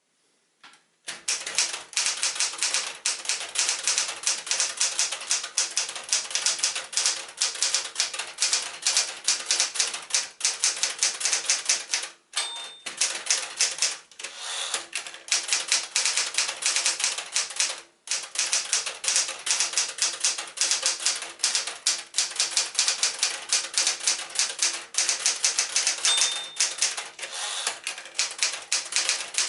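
1974 Smith-Corona Galaxie Twelve manual portable typewriter being typed on, with rapid keystrokes starting about a second in. The typing breaks off briefly a few times, and there are two short high pings, one near the middle and one near the end.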